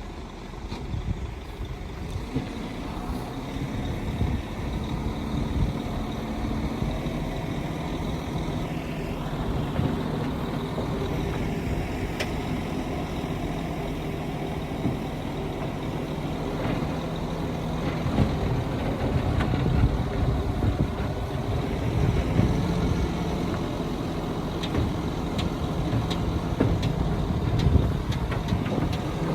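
Diesel engines of heavy earthmoving machines (a Shantui bulldozer and dump trucks) running steadily under load, with a few short knocks.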